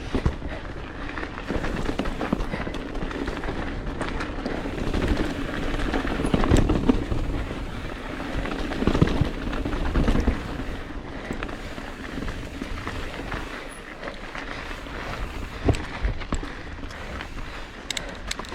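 Mountain bike riding fast over a rough, rocky trail: continuous rattling of the bike and tyre noise with many scattered knocks, louder in the middle stretch.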